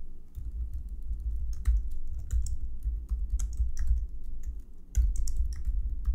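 Typing on a computer keyboard: irregular runs of quick keystroke clicks, with a low rumble underneath, as a line of code is typed.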